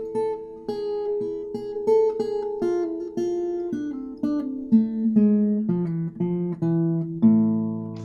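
Acoustic guitar being played: plucked notes about two a second, the line stepping down in pitch from about four seconds in and ending on a low note left to ring out.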